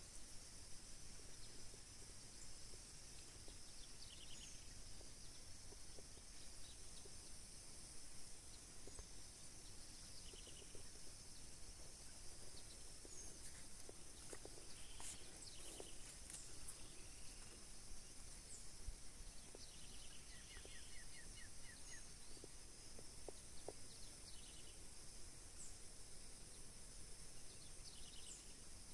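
Faint rural outdoor ambience: a steady high hiss with short, rapid chirps from small animals every few seconds.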